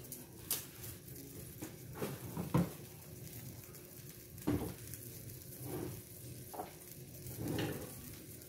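Broth simmering quietly in a steel wok on an induction cooker, over a low steady hum, with a few short, light knocks and pops scattered through.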